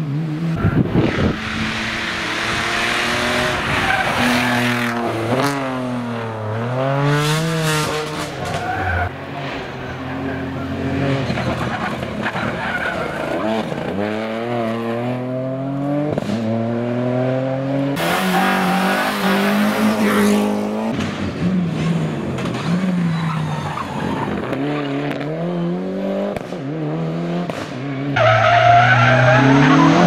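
Rally cars taken one after another through a tight tarmac bend. Each engine is revved hard, its pitch sweeping down on braking and climbing again through the gears as it accelerates away. The loudest car arrives near the end.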